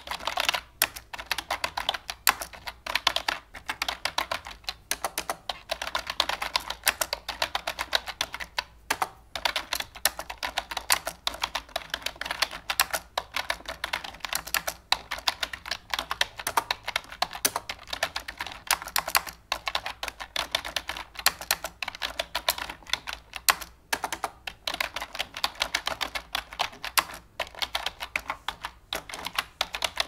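Continuous random typing on a computer keyboard: a fast, dense run of key clicks with brief pauses every few seconds.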